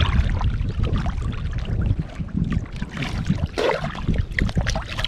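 Seawater sloshing and splashing around people wading chest-deep, with irregular small splashes over a steady low rumble.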